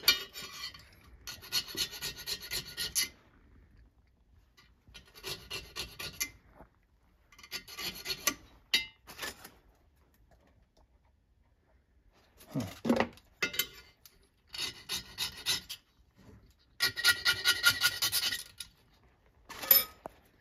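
Hand file rasping in short bursts of quick strokes across the end of a two-stroke piston ring, opening up an end gap that was too tight. A couple of duller knocks come about midway.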